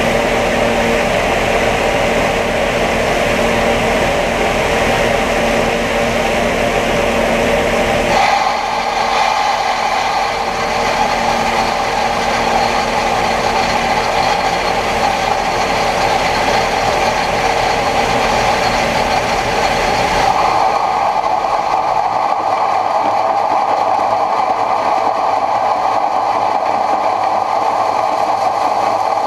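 John Deere 9500 combine running while shelling corn: a steady drone of engine and threshing machinery with a held whine. The sound changes abruptly twice, about eight and twenty seconds in.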